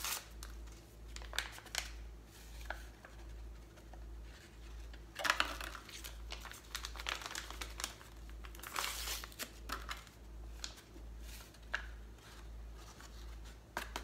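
Paper ranch seasoning mix packets torn open and crinkled by hand, in irregular rustling bursts, the loudest about five seconds in and again around nine seconds.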